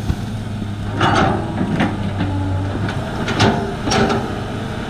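Large excavator's diesel engine running steadily, with several sharp clanks and scrapes as the bucket digs into stony ground.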